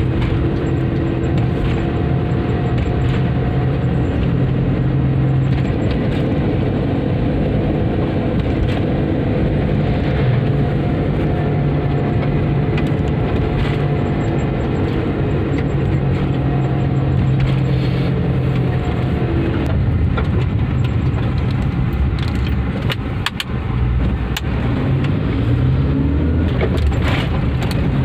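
Car driving at a steady speed, heard from inside the cabin: a steady engine and road drone with a low hum. The drone dips briefly about two-thirds of the way through, and a few sharp clicks or rattles come near the end.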